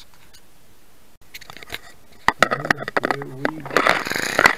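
A few handling clicks and knocks, then a Sega Toys Air Zero car's compressed-air piston engine starting up near the end, with rapid ticks that quicken as the released air drives it.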